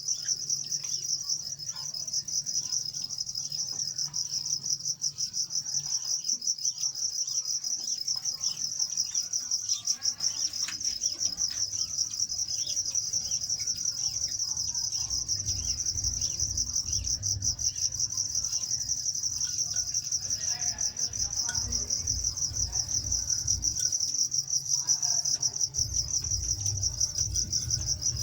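Continuous high-pitched insect trill, steady and finely pulsing, with faint scattered bird chirps and an intermittent low rumble underneath.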